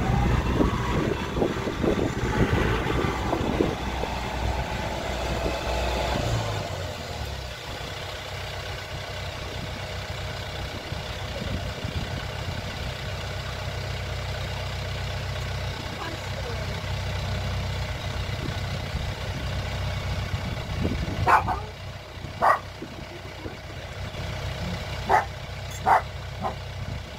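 A farm tractor's engine runs steadily, louder for the first six seconds or so and then lower. A dog barks several times near the end.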